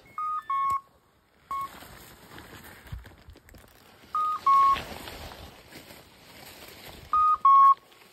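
Electronic beeper collar on a hunting setter sounding its point alarm: a two-note beep, higher then lower, repeated three times about every three to four seconds. It is the sign that the dog has stopped on point.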